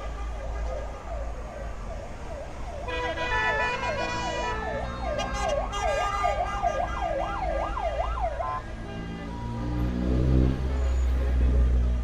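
Emergency-style siren sounding from the passing parade vans, sweeping up and down and quickening into a fast, louder yelp of about three cycles a second, with steady horn-like tones over it for a couple of seconds; it stops about eight and a half seconds in. Near the end a deeper rumble of a passing vehicle takes over.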